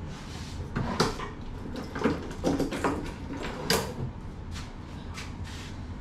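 A series of about eight sharp slaps and knocks at uneven intervals, the loudest about a second in and just before four seconds, the later ones fainter, over a steady low hum.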